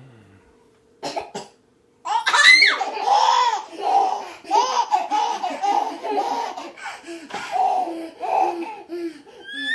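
A short cough about a second in, then a baby laughing hard in a long run of repeated laughs, about two a second, set off by the cough.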